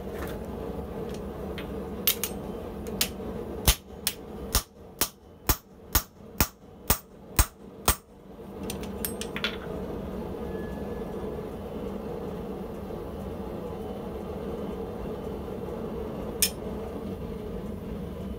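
Hand hammer striking the top die of a blacksmith's guillotine tool about a dozen times, roughly two blows a second, working hot round stock held between the dies. The blows are sharp, ringing metal-on-metal strikes, with a few lighter knocks just before them and one more knock later on.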